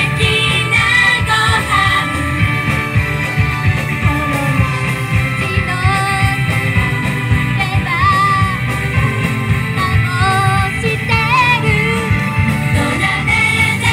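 Female idol group singing a pop song live into handheld microphones over amplified backing music with a steady beat.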